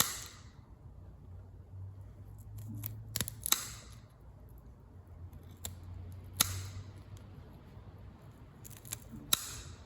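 Meat scissors snipping through a squirrel's tail bone: several sharp crunching snips spaced a few seconds apart, cutting through the bone.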